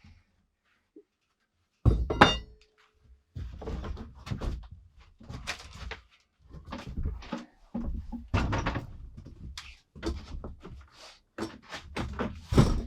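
Irregular knocks, thuds and rustling of objects being handled and set down in a small room. A loud knock about two seconds in leaves a brief ringing tone.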